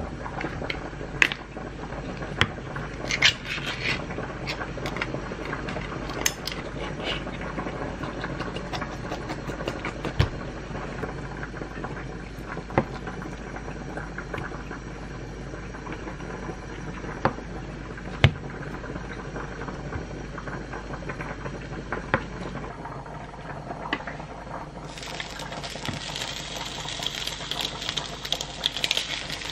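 Kitchen prep: a can of Spam being opened and the block sliced with a knife on a wooden cutting board, heard as scattered knocks and clicks. Near the end a steady sizzle starts as Spam slices go onto a hot waffle maker plate.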